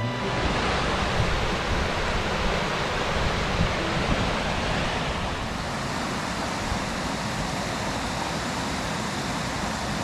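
Steady rushing of water from a small waterfall cascading into a stream pool, an even, unbroken noise.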